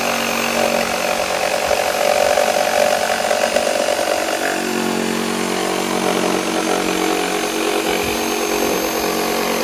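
Electric jigsaw cutting a curve through a pine board, running steadily. Its tone drops a little about halfway through.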